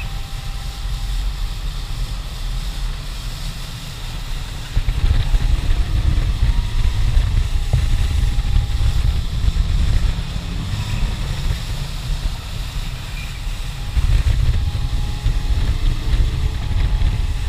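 Heavy wind rumble on the camera microphone over a motorboat under way at speed: a Honda four-stroke outboard running, with water rushing in the wake. The rumble gets louder about four to five seconds in and again near the end.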